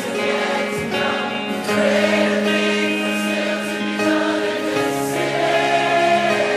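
Christian worship music: a choir singing long held chords.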